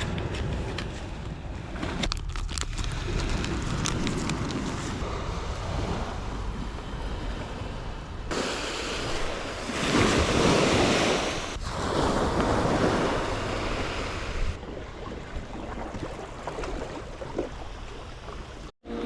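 Sea waves washing onto the shore, with wind gusting on the microphone; the wash swells louder about eight to ten seconds in and again a little later.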